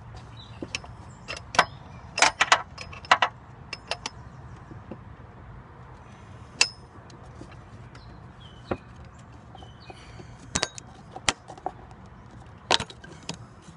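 Irregular metallic clinks and clanks of a wrench on a serpentine belt tensioner as the new belt is worked over the pulleys, in two bunches about two seconds in and again near the end.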